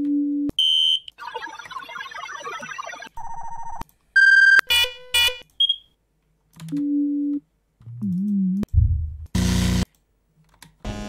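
Short sound-effect samples from a hi-tech effects library played one after another as files are auditioned: synthetic alarm tones and electronic beeps, each lasting under a second and cut off by the next, with a short burst of noise near the end.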